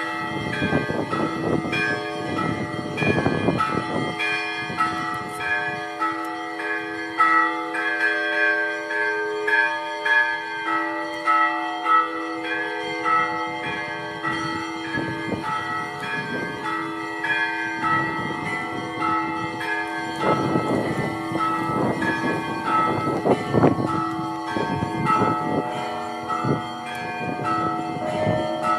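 Church bells ringing a peal: quick repeated runs of small bells over a steady, lower bell tone. Heavier strikes come at the start and again past the middle.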